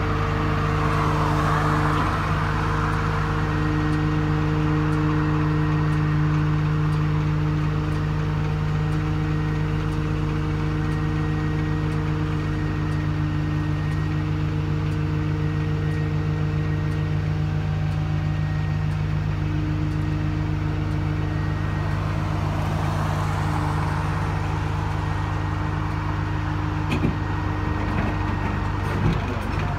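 Tow truck's engine idling steadily, a constant low hum, with traffic going by twice and a few mechanical clicks near the end.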